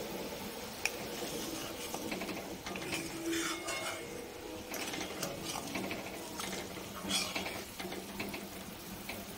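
Metal spatula stirring and scraping around a kadhai of boiling gravy, with scattered clicks against the pan over a steady bubbling hiss.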